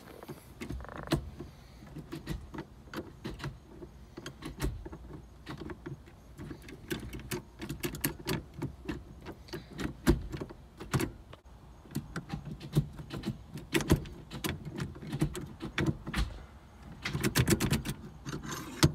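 Racespec billet short-shift box being run through the gears by hand, its cables freshly connected: a string of sharp metallic clicks and clunks as the lever moves between gates, with a quick flurry of clicks near the end.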